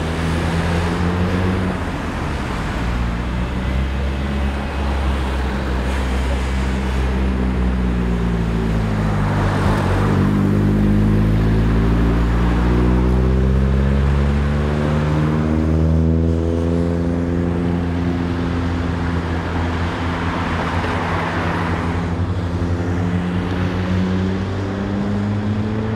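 Tuned Nissan 200SX S13's CA18DET turbocharged four-cylinder, through a 110 mm stainless exhaust, running with a loud low drone as the car drives by. The engine note drops to its lowest about ten seconds in, climbs steadily as it accelerates over the next several seconds, and rises again near the end.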